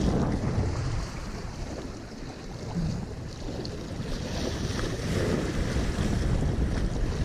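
Wind buffeting the microphone over waves washing and splashing against the jetty rocks.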